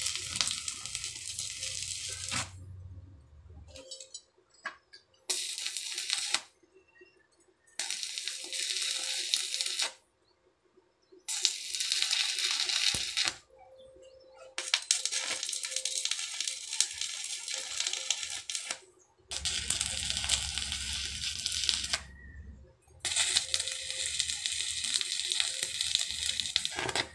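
Stick-welding arc crackling as steel angle bar is welded into a frame: about seven short welds of one to four seconds each, with brief pauses between.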